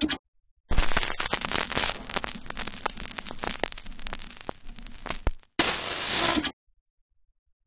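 Crackling, static-like noise full of sharp clicks for about five seconds, then a short burst of hiss, then silence.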